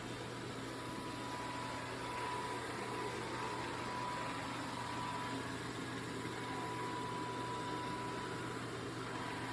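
MOVA S10 Plus robot vacuum running: a steady motor whir and rush of air, with a low hum and a thin whine held at one pitch throughout.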